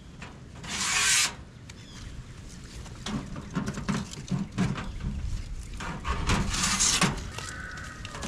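Handling noises as paper is stuffed into a sheet-metal camp stove's firebox and a chimney pipe is fitted onto its top: two short rustling scrapes, one about a second in and one about six seconds in, over a low rumble of wind on the microphone.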